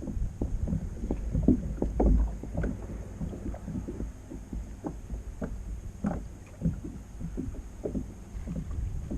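Water lapping and slapping in small, irregular splashes and knocks against a kayak hull, with a low wind rumble on the microphone in the first couple of seconds.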